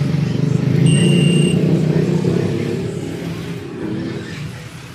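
Low motor-vehicle engine rumble that swells about a second in and then fades, like a vehicle passing by. A short, thin high-pitched beep sounds at the peak.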